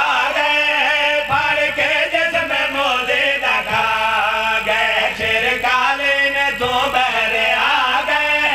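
A man's voice chanting a devotional verse in a sung, melodic style through microphones, the pitch bending up and down in long phrases.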